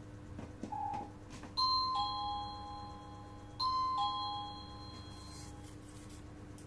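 Wireless doorbell receiver playing an electronic two-note ding-dong chime twice, a higher note falling to a lower one each time. A short beep sounds just before the first chime.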